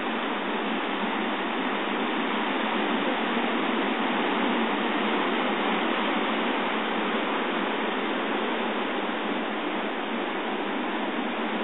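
Ocean surf breaking and washing over a rocky shore: a steady rushing noise without separate wave crashes standing out.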